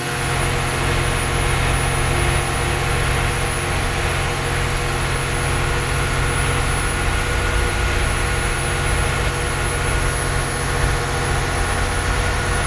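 Fishing boat's engine running steadily, a constant low drone with no change in speed.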